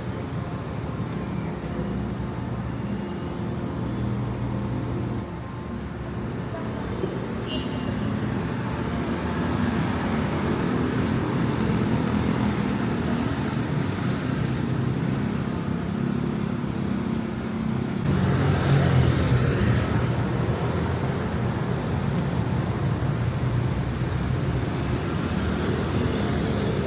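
City road traffic: vehicle engines running steadily, with one vehicle passing close and louder about two-thirds of the way through.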